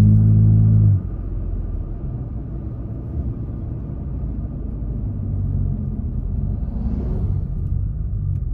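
Toyota Tacoma's engine and new Flowmaster FlowFX dual cat-back exhaust heard from inside the cab under acceleration: a loud pitched engine note drops away sharply about a second in, leaving a lower, steady rumble.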